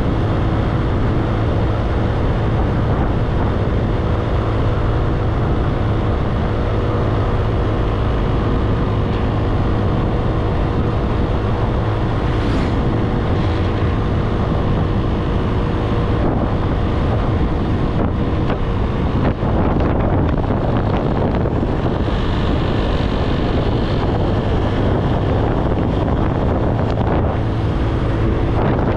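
A motorbike riding along: a steady engine hum under heavy wind noise on the microphone.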